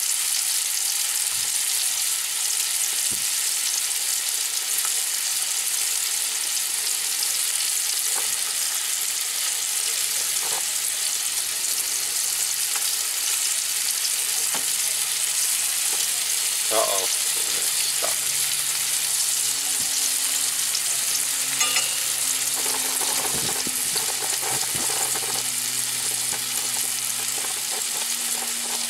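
Summer flounder (fluke) fillets frying in butter in a cast-iron skillet: a steady sizzling hiss, with a few faint clicks.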